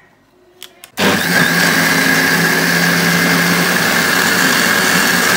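Electric blender switched on about a second in and running steadily, grinding soaked rice, water and yeast into a smooth liquid batter, with a steady high whine over the motor noise.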